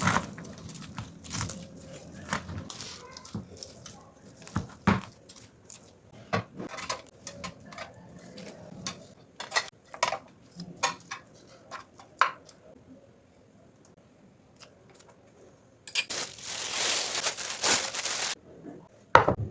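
Kitchen handling sounds: scattered clicks, taps and clinks of utensils and dishes for about twelve seconds, then a lull, then a dense rustling noise lasting about two seconds about sixteen seconds in.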